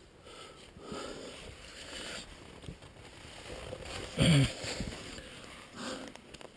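A climber scrambling on rock: faint breathing and the rustle of clothing and hands against the stone, with one short grunt of effort about four seconds in.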